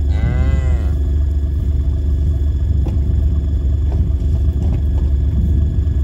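A short moo from the cow and calf, rising then falling in pitch, in the first second. Under it a steady low rumble runs throughout, with a few faint knocks later on.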